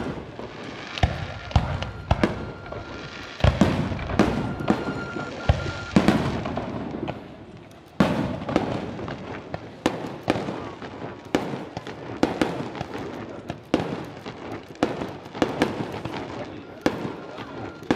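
Aerial fireworks bursting in rapid succession: a steady run of sharp bangs with crackling between them, busiest and loudest a few seconds in.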